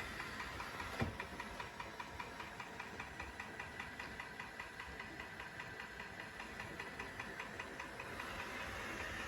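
Roomba j7+ robot vacuum running, a steady motor hum with a regular ticking of about four a second. A single knock about a second in.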